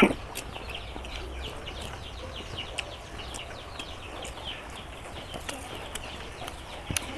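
Birds chirping steadily in quick, high, falling chirps, several a second, with a few faint clicks in between.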